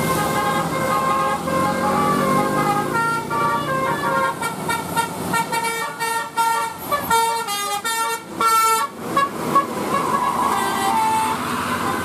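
Bus 'telolet' musical air horn playing a tune: held notes that change pitch in steps, then a run of rapid short toots in the middle, settling back into held notes near the end.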